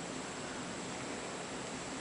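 Steady background hiss with a faint, steady high-pitched whine; no distinct handling sounds stand out.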